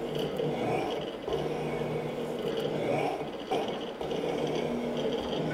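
Morey 12-inch vertical shaper running, its ram stroking up and down to cut an internal keyway. A steady machine hum that shifts in pitch with each stroke, repeating a little more than once a second.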